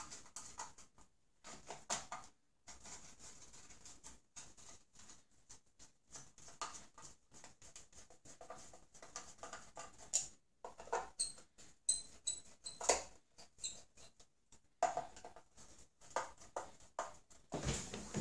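Insulated hand screwdriver turning the fixing screws of a double socket faceplate into its back box: faint clicks and scrapes of the screws and plate, with a few short high squeaks about two-thirds of the way through.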